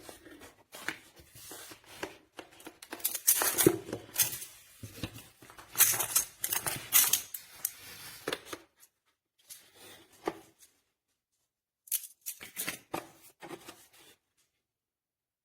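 Small plastic magnetic building cubes clicking and clacking as they are handled and snapped together. The clicks come in a long run of rattling, then two shorter spells, and stop a little before the end.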